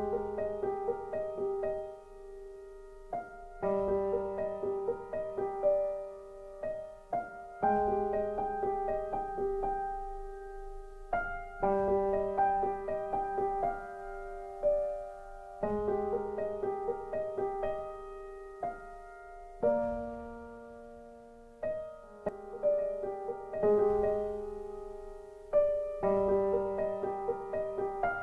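Background piano music: a gentle keyboard piece in repeating phrases with notes struck and left to ring.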